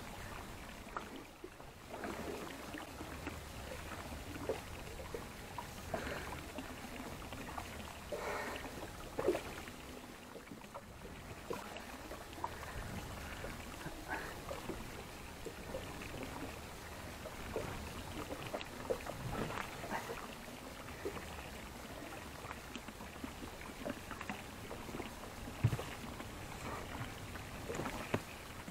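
Small inflatable boat sitting on the water: a steady low wash of water and boat noise, with scattered light knocks and clicks from handling aboard.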